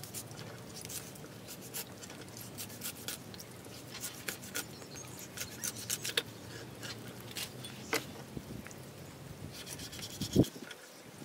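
Cleaver slicing a raw snakehead fish fillet on a round wooden chopping board: soft scraping of the blade through the flesh, with scattered light ticks of steel against the wood. Near the end comes one sharper knock of the blade on the board.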